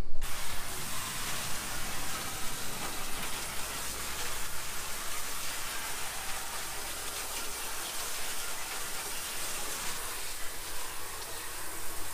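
Water spraying steadily from a garden hose wand onto the underside of a truck hood, a continuous hiss of spray spattering on metal as the degreaser is rinsed off.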